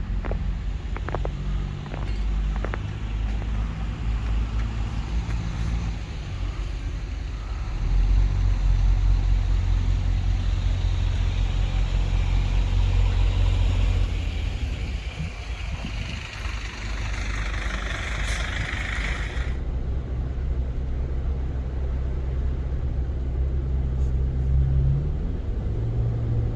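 Car driving: a steady low engine and road rumble, louder for several seconds about a third of the way in. A hiss builds just past the middle and cuts off suddenly.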